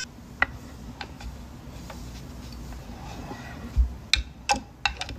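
Light clicks and taps of small hard objects on a vanity table. About four seconds in, a quick run of sharper clicks comes with a couple of low thumps.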